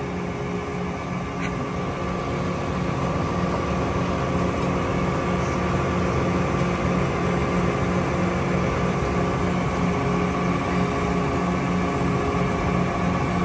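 John Deere 7R 310 tractor's diesel engine idling steadily, a constant low drone with a steady hum.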